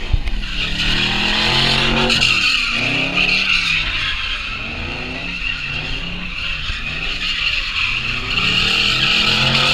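A car doing donuts: its tires squeal steadily on the pavement while the engine revs rise and fall over and over.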